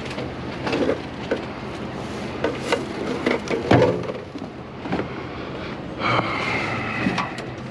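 Rummaging through discarded goods in a dumpster: a string of knocks and clunks from items and packaging being handled, with rustling, and a brief squeak near the end.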